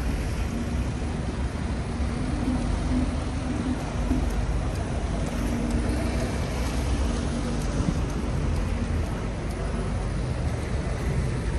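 Busy city street traffic: a steady low rumble of vehicle engines and road noise, with a faint engine hum running under it.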